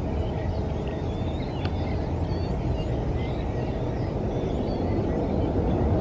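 Twin rear-mounted jet engines of a Bombardier CRJ regional jet at takeoff power, a steady low roar that builds a little toward the end, with small birds chirping over it.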